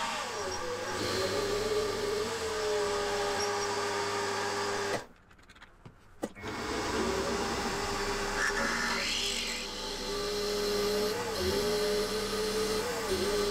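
Milling machine drilling down through the bronze bushes of aluminium bearing blocks: a steady motor whine that dips briefly in pitch as the drill bites. It cuts out for about a second and a half around five seconds in, then starts again.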